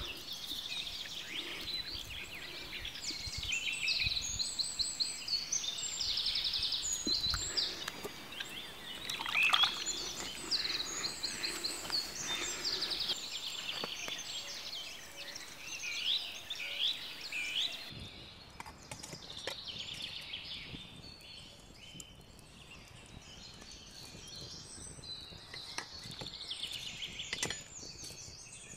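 Several songbirds singing and chirping over one another, quick trills and repeated notes, busiest in the first half. A few short knocks or crackles come through now and then.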